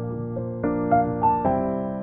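Background piano music: notes and chords struck every half second to second and left to fade.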